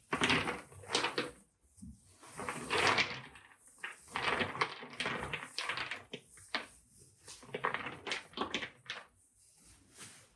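Irregular knocks and scrapes from pieces of work being handled and moved in a woodworking shop, one every second or so.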